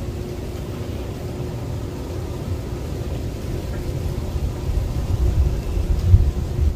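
Wind buffeting the microphone: a low, gusty rumble that grows stronger in the last two seconds, with a faint steady hum beneath it.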